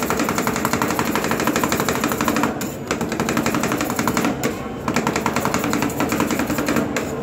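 Two metal spatulas chopping and mashing rolled-ice-cream mixture on a frozen steel cold plate. They make a fast run of metal-on-metal clacks, many a second, broken by two short pauses.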